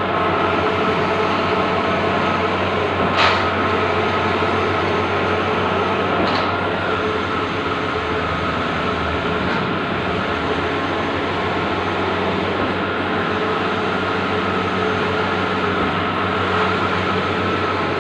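Bluewin large-format outdoor digital printer running, a steady mechanical whir and hum. Three sharp clicks come about three seconds apart in the first half.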